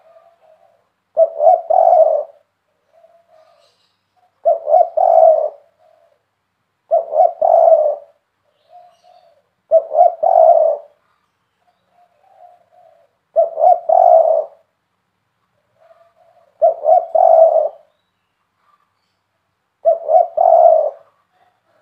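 Spotted dove cooing: seven loud three-note coos, each about a second long and roughly three seconds apart, with soft low coos between them.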